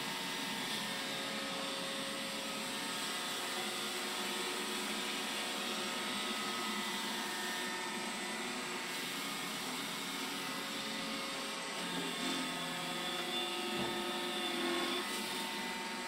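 iRobot Roomba 975 robot vacuum running on a hard laminate floor: a steady motor hum and whine made of several steady tones over a noisy rush. The tones shift a few seconds before the end.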